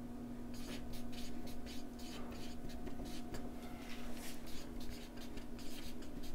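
Marker pen writing on a whiteboard: a quick run of short scratchy strokes starting about half a second in, over a steady low hum.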